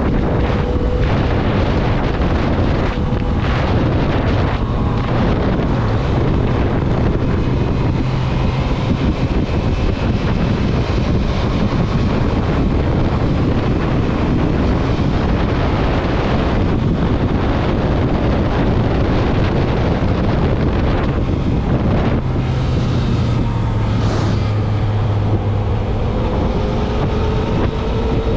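Motorcycle engine running on the move, buried in heavy wind noise on the microphone; its pitch climbs near the end as the bike accelerates.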